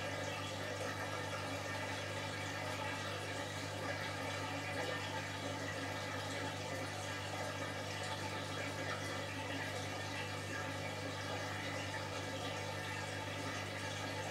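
Electrolux EWF9042R7WB front-loading washing machine with water running steadily through it, over a steady low hum.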